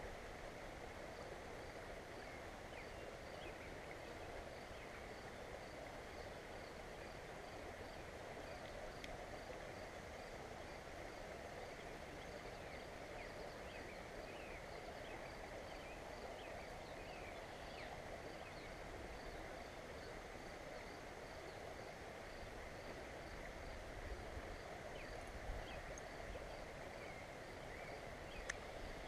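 Quiet, steady outdoor ambience: an even rushing background with faint bird chirps and a faint high-pitched call repeating a few times a second. A few light knocks come near the end.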